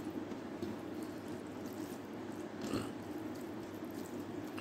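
Quiet eating sounds: chewing and fingers mixing rice with watery moong dal, with one brief sharper mouth smack a little past halfway, over a steady low background hum.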